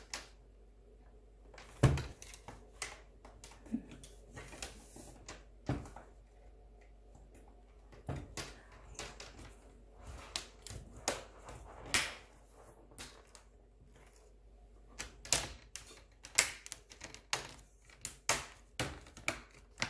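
Plastic screen bezel of a Dell Inspiron laptop being pressed back onto the display, its clips snapping into place with irregular sharp clicks and taps. There is a loud snap about two seconds in, and the clicks come thicker in the last few seconds.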